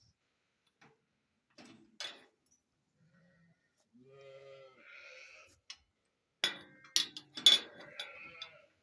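A sheep bleats about four seconds in. Then comes a run of sharp metallic clanks and knocks, the loudest about seven and a half seconds in: a home-made round-bar gate hook and gate fittings knocking together as the hook is tried on the gate.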